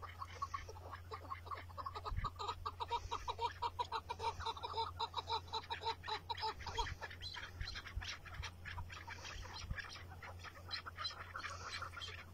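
Chukar partridges calling: a long rapid run of short clucking notes, several a second, loudest in the middle and weaker toward the end.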